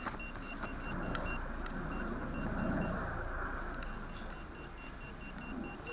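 Faint high beeps in short, evenly spaced pulses from a metal detector's built-in speaker, over a steady rustling noise that swells briefly about halfway through.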